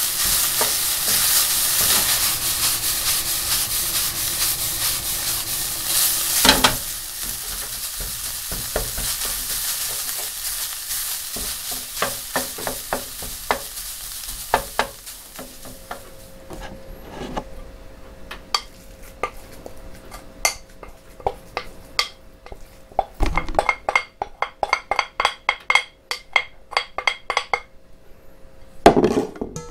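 Food sizzling in a frying pan while being stirred; the sizzle dies away about halfway through. Then come scattered utensil clicks and a quick run of ringing clinks near the end, like a utensil working against a bowl.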